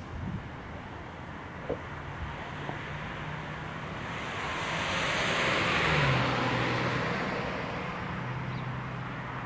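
A vehicle passing by: its noise swells to a peak about six seconds in and then fades, while its low engine hum drops in pitch as it goes past.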